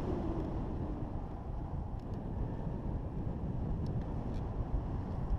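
Steady wind rushing over the microphone of a camera flying under a paraglider wing, a low rumbling noise with a few faint clicks.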